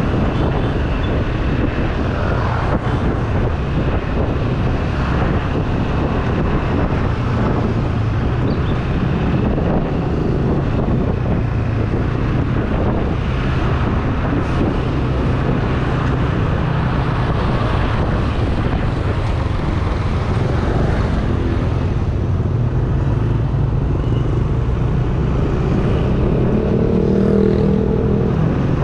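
Motorcycle engine running steadily while riding in city traffic, over a heavy low rumble of wind on the microphone; near the end an engine revs up, rising in pitch.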